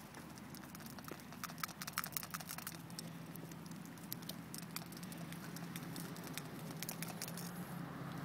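White domestic ducks pecking Cheerios off the asphalt path, their bills making quick, irregular light clicks and taps, densest in the first half, with a low steady hum underneath later on.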